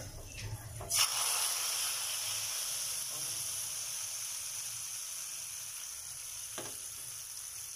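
Hot tadka oil with fried cumin and whole red chillies poured into a pot of karhi: a sudden loud sizzle about a second in, then a steady sizzle that slowly fades. A single metal knock comes near the end.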